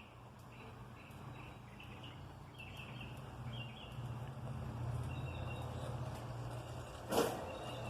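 Birds chirping in short repeated calls over a low hum that grows louder toward the middle, with one sharp click or knock near the end.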